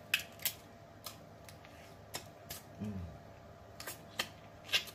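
Scattered sharp clicks and cracks of snow crab shell being picked apart by hand and eaten, with a brief low hum that falls in pitch about three seconds in.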